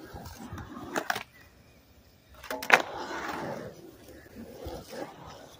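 Skateboard on concrete: wheels rolling, with a sharp clack of the board about a second in and a louder clack near the three-second mark, followed by more rolling.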